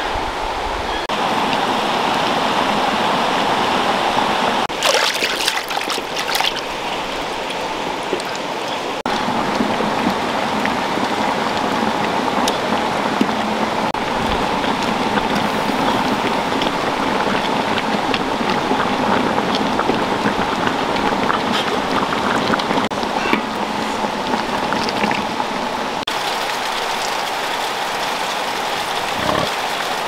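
Steady rush of running water, with a short patch of sharp clicks and clatters about five seconds in.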